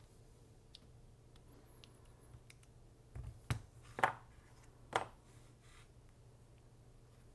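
A few light knocks of a small stainless revolver frame and its loose steel side plate being set down on a tabletop, clustered between about three and five seconds in, over faint room tone.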